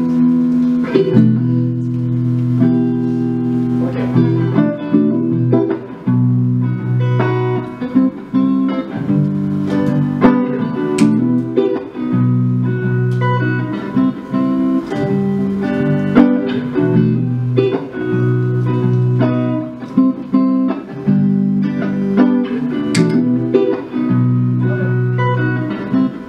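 Electric guitar played through a looper pedal: a repeating phrase of low sustained notes and chords, with single notes picked over it.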